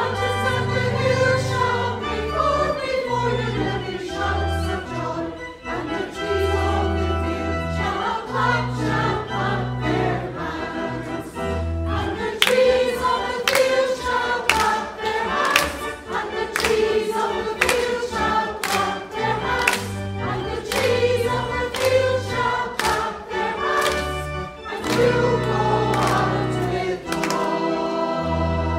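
Choral singing with instrumental accompaniment: sung lines over a bass line, with a beat of sharp percussive strikes through the middle stretch.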